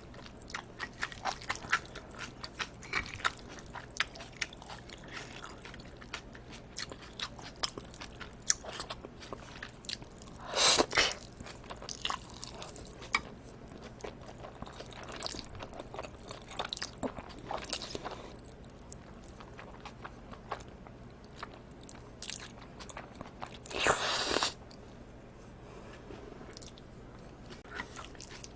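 Close-miked chewing of chopped live octopus and cold spicy bibim noodles: many sharp mouth clicks in quick irregular succession. Two louder, longer rushing bursts come about ten seconds in and again near the end.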